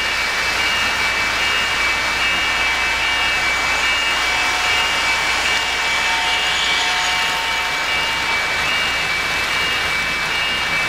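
O-gauge model trains running on three-rail track: a steady rolling whir of wheels and motors, with a high tone pulsing about twice a second over it.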